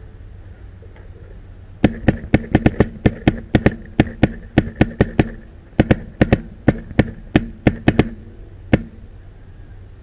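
Paintball marker firing rapid shots, about three to four a second, in two strings with a short pause between and one last lone shot. The sharp pops begin about two seconds in.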